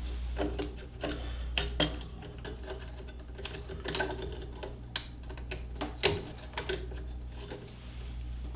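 Long hex key turning M5x14 screws through the hole in a printer's carry handle: irregular light clicks and ticks as the key works in the screw heads, over a low steady hum.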